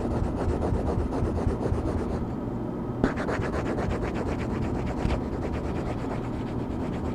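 Fast, rhythmic back-and-forth coloring strokes scratching on a paper page. The strokes stop briefly about two seconds in and resume with a light tap about a second later.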